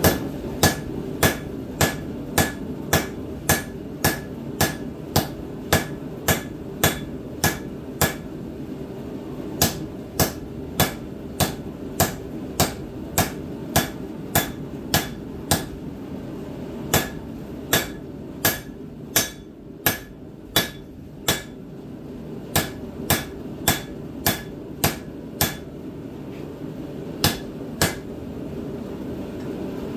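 Blacksmith's hand hammer striking red-hot steel on an anvil, forging a black-powder rifle barrel into a pipe tomahawk. The blows come about twice a second in runs of several strokes with short pauses between, and each blow rings briefly. There are no blows near the end.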